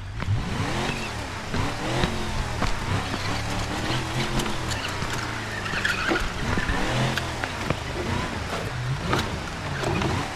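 Engine sound effect added over RC truck footage: the dubbed engine runs with revs rising and falling repeatedly. Sharp clicks and knocks are scattered through it.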